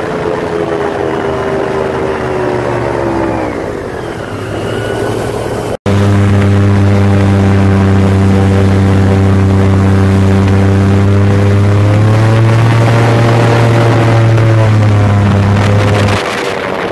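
Airboat's V8 engine and propeller running loud, falling in pitch over the first few seconds. After a brief break about six seconds in, it runs steady again, rises in pitch about twelve seconds in, and drops back near the end.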